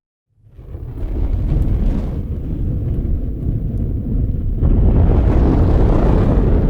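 Large fire burning with a loud, deep rumble, fading in from silence and swelling a little past halfway, with a few faint crackles.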